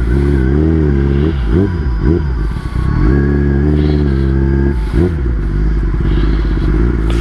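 Kawasaki ZX-10R inline-four sport bike engine running at low, steady revs, with a few quick rises and falls in pitch in the first few seconds.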